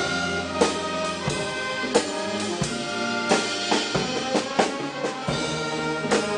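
Brass band playing, with trombones holding notes over frequent hand-drum strokes.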